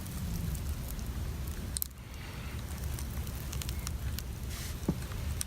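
Small clicks and crackles of thin cables being worked loose from the plastic wire guides inside a MacBook Pro, with a sharper click about two seconds in and another near the end, over a low steady rumble.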